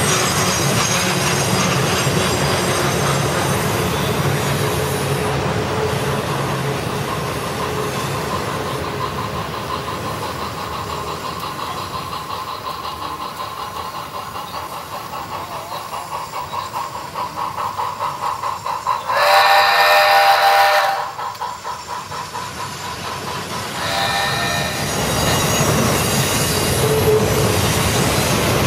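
HO-scale model train running on the layout: steady rolling clatter of the cars with squealing wheels on the curves, turning into a rhythmic pulsing further on. A sound-equipped model steam locomotive blows a long whistle of about two seconds roughly two-thirds of the way through, then a shorter blast a few seconds later.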